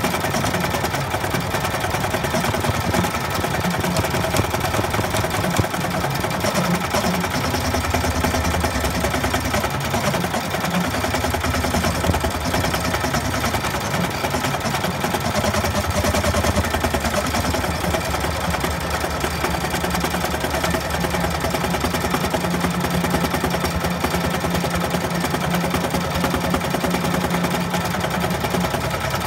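Bernina E16 sixteen-needle industrial embroidery machine stitching out a design: a fast, steady run of needle strokes over the machine's running hum.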